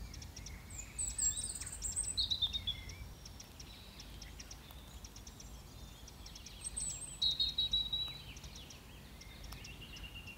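Small songbirds singing in the background: two louder phrases of high notes sliding downward, about a second in and again about seven seconds in, with short high chirps between, over a steady low rumble.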